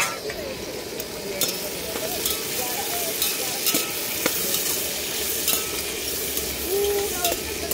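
Chopped vegetables sizzling as they fry in a steel pot over a camp stove, the first stage of a vegetable pulao, while a slotted steel spoon stirs them, scraping and clicking against the pot.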